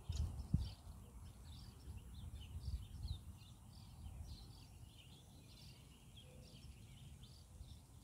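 Birds chirping, many short high notes a few times a second, over a low rumble of wind on the microphone that is gustier in the first second.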